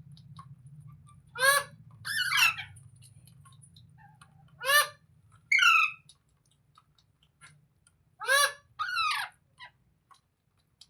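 A parrot calling loudly in three pairs a few seconds apart; in each pair a short call is followed by a longer one that slides downward in pitch.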